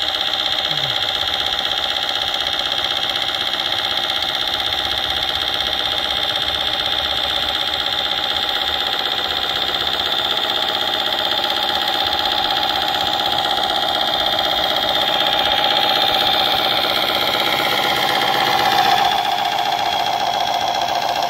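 Simulated diesel truck engine running steadily from the sound unit of a radio-controlled Tamiya Knight Hauler, rebuilt as a Mack Titan, while it drives under load. It grows a little louder near the end, with a shift in pitch there.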